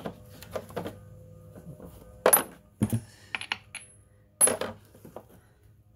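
Steel sockets clinking against the bolt heads of a removed engine mount as a socket size is tried: a few sharp metal clinks, the loudest two about two and a half and four and a half seconds in, each with a brief high ring.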